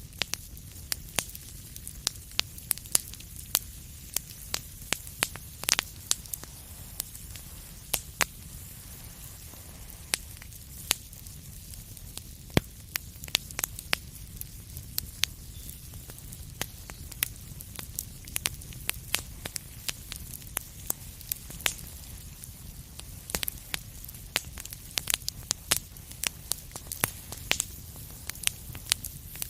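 Wood fire crackling in a fireplace: many sharp irregular pops and snaps over a steady low rumble and hiss of the flames, the pops thinning out for a while mid-way and coming thick again near the end.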